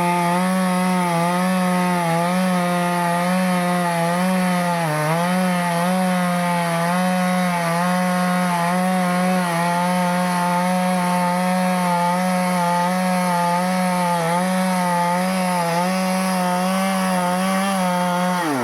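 Stihl two-stroke chainsaw running at full throttle while cutting teak wood, its pitch steady with small wobbles and a brief dip under load about five seconds in. Near the end the throttle is released and the engine speed falls away.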